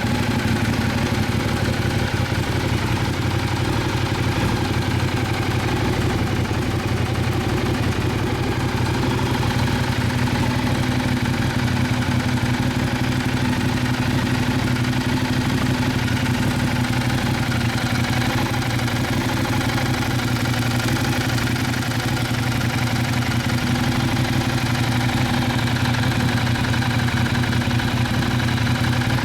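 Ducati Diavel's L-twin engine idling steadily through an aftermarket silencer, with no revving.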